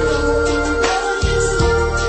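Slow romantic soul ballad playing, an instrumental stretch with held keyboard chords over bass and a steady drum beat.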